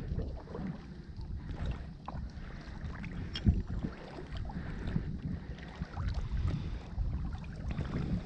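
Small boat being paddled: irregular paddle splashes, water lapping and soft knocks against the hull, over a low steady rumble.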